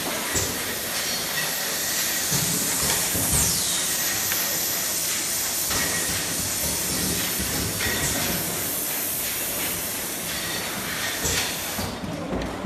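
Pneumatic automatic paste filling machine running: a steady hiss of compressed air with a few clicks and knocks.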